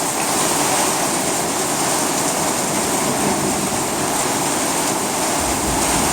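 Heavy thunderstorm downpour: rain pouring down in a steady, dense hiss.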